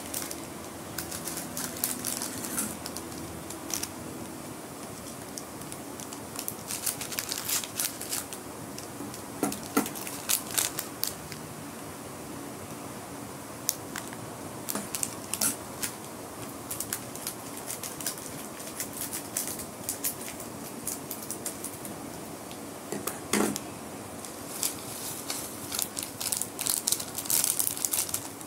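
Foil seasoning sachets of instant noodles crinkling and crackling as they are handled, opened and squeezed, in irregular bursts of sharp crackles that are busiest near the end.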